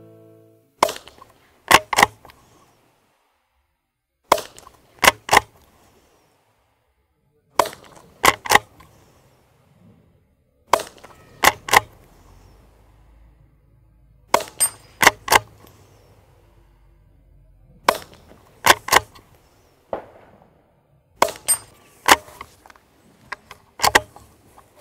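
Suppressed ISSC 'Ninja' carbine, with an integrated sound moderator, firing subsonic rounds about seven times at a steady pace: each shot is only a faint pop, followed under a second later by a louder metallic strike as the bullet hits a steel gong. The hits are louder than the shots.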